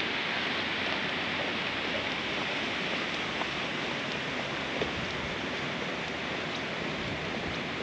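Steady rush of fast-flowing river water, an even hiss with no pitch and a few faint clicks.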